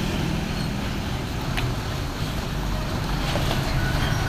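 Road traffic noise: a truck engine running low and steady with tyre and wind noise, and a single brief click about one and a half seconds in.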